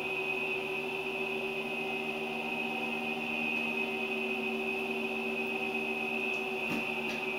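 A steady machine hum with a high-pitched whine over it, unchanging throughout. A few faint soft taps near the end.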